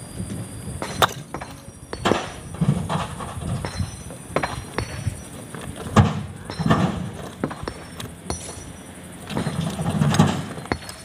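Loose chunks of hard stone being handled: several sharp clinks and knocks of rock on rock, the loudest about six seconds in, with dull low thuds between them.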